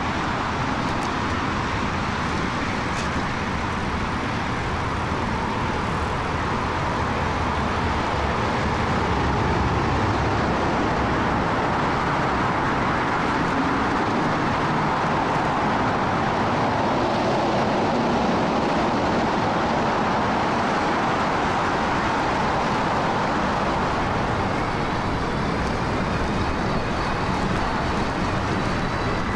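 Steady wind rush over the microphone with road and tyre noise from riding an e-bike at speed.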